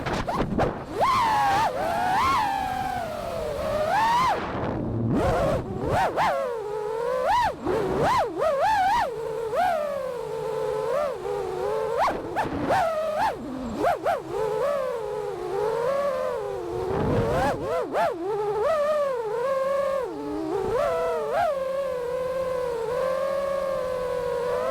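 Brushless motors of a 6S five-inch FPV freestyle quad (Flyfish 2207 1850kv on P2 Pickle props) whining, the pitch sliding up and down constantly with throttle, with quick dips and surges every second or two.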